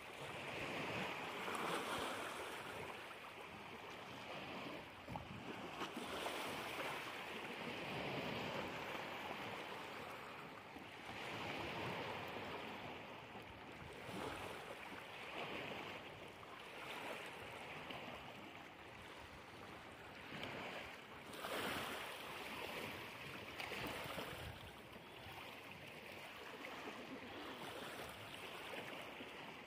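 River water lapping and splashing against the base of a concrete retaining wall, swelling and fading every few seconds.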